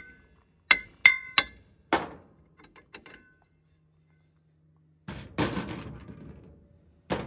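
A hammer strikes a seized rear drum brake four times in quick succession, each blow ringing with a metallic clang, then a few light clinks: it is knocking a stuck drum loose. After a pause there is a rough scraping rustle, then a single sharp knock near the end.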